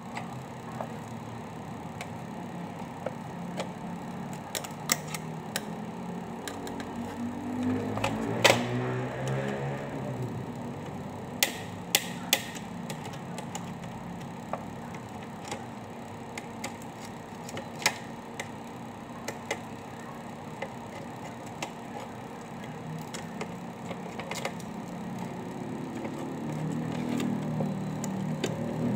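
Scattered sharp clicks and small metal taps from a screwdriver and loosened parts as a laptop's heat-pipe heatsink and cooling fan are unscrewed from the motherboard, the loudest knock about eight seconds in. Under them runs a steady low hum, with a louder drone that rises and falls in pitch swelling around eight seconds and again near the end.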